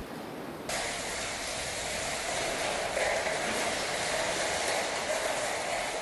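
Torrential storm rain lashing down with wind, a steady dense rushing noise that sets in abruptly under a second in.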